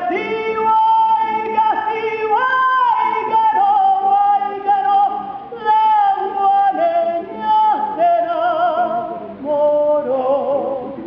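A singer holding long wordless notes in a slow melody, with vibrato on the later notes and little or no accompaniment beneath the voice.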